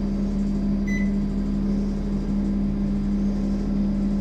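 A split air conditioner's indoor unit gives one short beep about a second in as the remote switches it on, over a steady machine hum.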